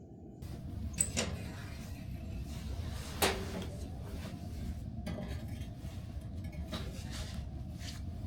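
Scattered clinks and knocks of things being handled, about half a dozen, over a steady low rumble. The loudest comes about three seconds in and rings briefly.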